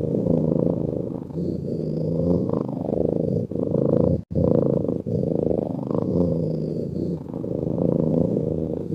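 A sleeping cat's low, continuous purring snore, swelling and easing with each breath in cycles of about two seconds. The sound cuts out sharply for a split second about four seconds in.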